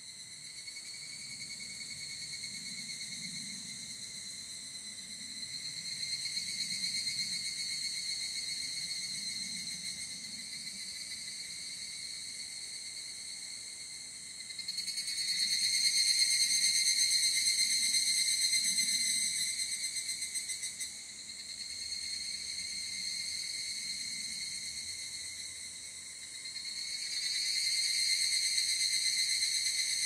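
Higurashi evening cicadas (Tanna japonensis) singing: ringing, high calls that swell and fade in waves. The loudest stretch starts about halfway through and breaks off sharply several seconds later, and another swell rises near the end.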